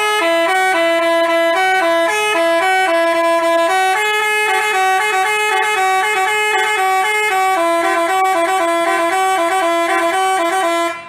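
Telolet basuri multi-tone bus horn playing a quick, jaunty melody of stepped notes, cutting off near the end.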